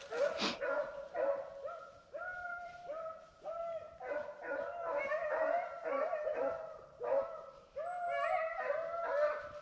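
Beagles baying over and over, about two bays a second, several voices overlapping, each bay rising and then held: a pack of hounds in full cry, running a rabbit on its scent.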